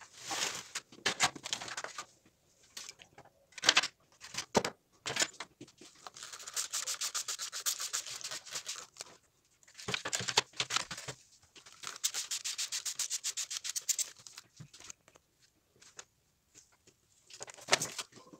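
Steel wrenches handled in thin aluminium foil trays: crinkling foil, knocks of metal on foil, and two stretches of fast, even rubbing as the wet wrenches are worked in the tray.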